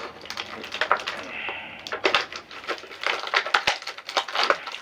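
Clear plastic packaging crinkling and crackling in quick, irregular clicks as action-figure parts are worked out of it by hand.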